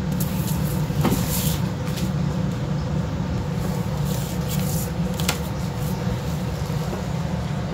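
A steady low hum, with a few short scratches and taps of a pencil drawing along a plastic ruler on paper, about a second in and again around four to five seconds in.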